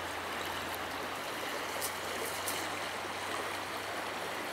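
Steady rushing background noise under a faint low hum, with a few faint high ticks about two seconds in.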